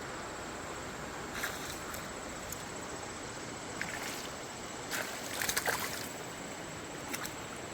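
Steady river flow with a few short splashes of a small hooked fish thrashing at the surface as it is brought to the kayak, the busiest cluster about five and a half seconds in.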